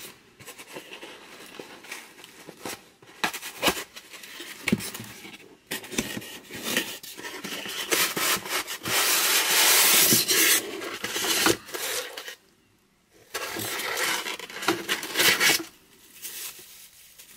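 Small cardboard box being handled and opened: cardboard scraping and rubbing, with short knocks. There are two longer tearing sounds, about nine seconds in and about fourteen seconds in.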